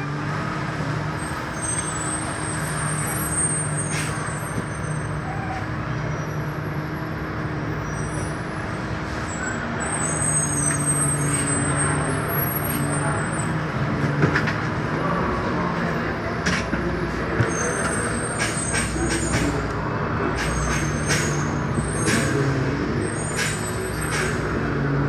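Rental-car shuttle bus engine running in stop-and-go traffic, heard inside the cab, a steady low drone with scattered short clicks.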